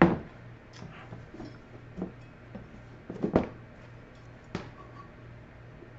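Scattered knocks and scrapes of a stainless measuring cup scooping brown sugar from its container. The sharpest knock comes right at the start, a louder cluster a little past three seconds in, and another knock about four and a half seconds in. A low steady hum lies underneath.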